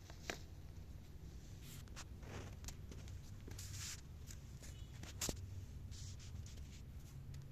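Faint scratching and rustling with a few sharp clicks; no chirping is heard.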